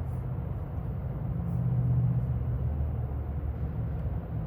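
A low, steady rumble that swells a little about halfway through.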